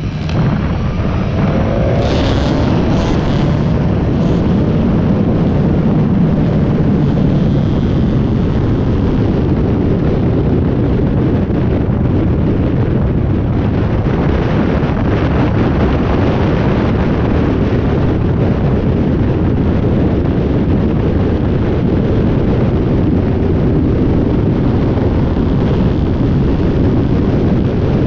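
Motorcycle riding at road speed: a steady rush of wind buffeting the bike-mounted microphone over the engine and tyre noise, with the engine note rising about a second in as it accelerates.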